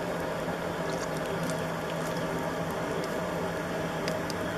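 Water running and spattering from a camping trailer's outdoor shower faucet, opened to flush bleach-sanitized water through the fresh water lines until chlorine can be smelled. A steady low hum sits under the water, with a few faint ticks.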